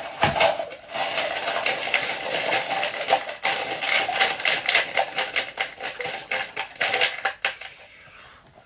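Mentos candies rattling and clicking in a cut-off plastic bottle funnel as they are pushed down into a cola-filled Wubble Bubble ball, a fast, irregular clatter that thins out near the end.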